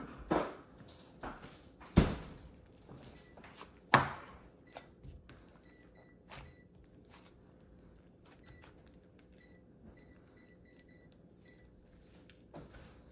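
Thick slime being pulled from its plastic tub and squeezed in the hands, with a few sharp pops and snaps in the first four seconds, the loudest about two and four seconds in, then quieter squishing.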